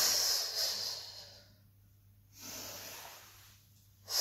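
A woman's breathing, paced with a Pilates rolling exercise: a loud breath about a second long at the start, then a softer one about halfway through.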